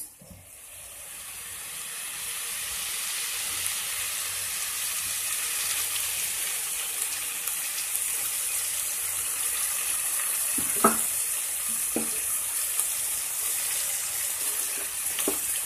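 Small bommidayilu fish frying in oil in a metal pan with salt and chilli powder: a steady sizzle that builds over the first couple of seconds and then holds, while the fish are left to cook through in the oil.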